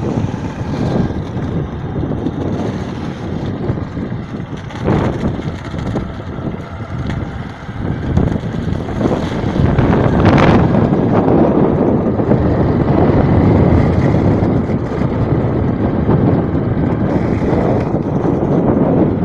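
Heavy rain falling, with wind gusting across the microphone in a dense, uneven rush that grows louder about halfway through.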